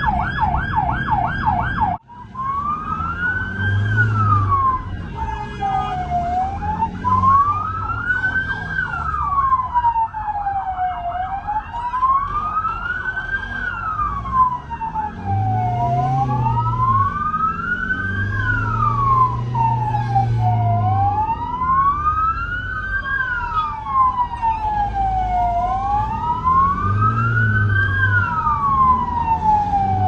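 Turkish ambulance siren: a fast yelp for the first two seconds, then after a short break a slow wail rising and falling in pitch, about one sweep every four to five seconds.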